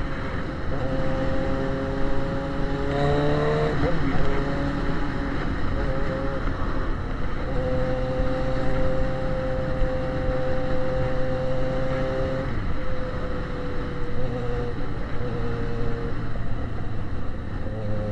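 Yamaha XJ6's inline-four engine running through an open, straight-through exhaust while ridden at low speed: the pitch rises as it accelerates over the first few seconds, drops with a gear change, holds steady for several seconds, then eases to a lower pitch.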